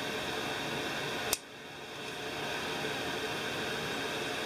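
Steady hiss with one sharp click about a second in: the Smith & Wesson Bodyguard 380's hammer falling on a dry-fired pull of its long double-action trigger.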